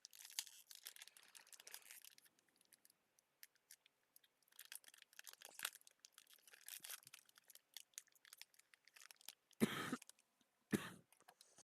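Light rustling and clicking of trading cards being handled and flipped through, with two louder knocks near the end before the sound cuts off abruptly.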